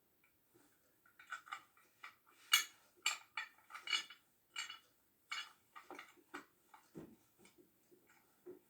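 Small hard parts, likely metal pieces of the angle grinder set, clinking and clicking as they are handled: a dozen or so irregular light knocks, the loudest about two and a half seconds in.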